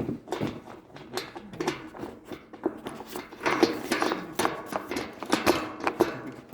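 Irregular knocks and clicks of handling metal bolts, washers and nuts while fastening floating dock steps to the dock.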